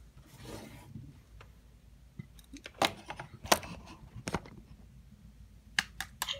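Handling noise: a few scattered sharp clicks and taps with some rubbing, as a hard plastic toy TIE fighter is handled up close, most of them from about three seconds in and again near the end.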